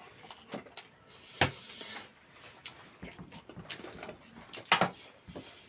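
Close-miked eating of chicken curry and rice: chewing and wet mouth clicks, with two sharper, louder clicks, one about a second and a half in and one near the end.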